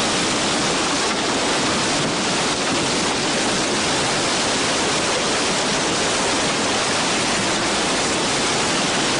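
Tsunami floodwater rushing through city streets and carrying wreckage: a steady, dense rush of water with no letup.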